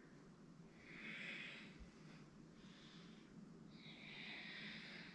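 Faint breathing through the nose, two slow audible breaths, one about a second in and a longer one near the end, over quiet room tone.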